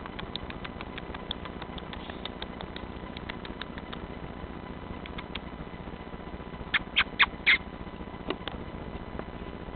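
Gray squirrel chattering: a run of faint, quick, sharp clicking chirps, then four loud short chirps in quick succession a little past the middle, with a few more faint clicks after.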